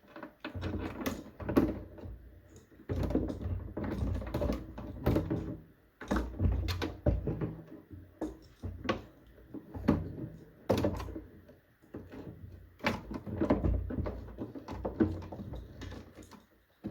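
Irregular knocks, clicks and rustling from a PC case fan and its cables being handled and pulled through the case's cable grommet.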